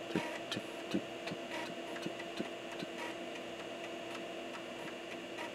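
Amiga floppy disk drive reading a disk as a program loads from it: soft ticks about three a second as the head steps, dying away about three seconds in, over a steady hum.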